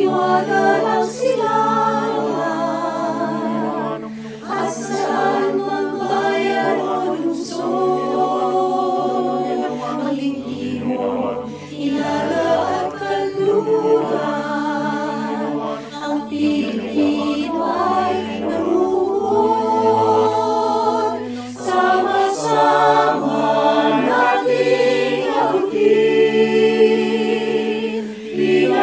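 Mixed choir of men's and women's voices singing an SATB a cappella arrangement in Filipino, in harmony over a bass line.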